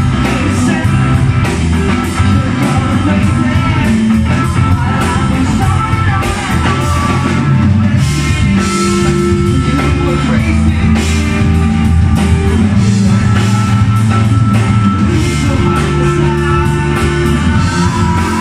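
Rock band playing live: electric guitars, bass guitar and drum kit, with a singer's voice over them.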